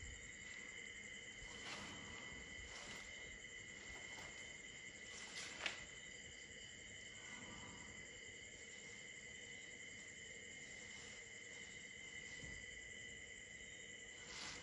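Faint, steady night chorus of crickets and other insects: several unbroken high-pitched trills held together. A single short click cuts in about five and a half seconds in.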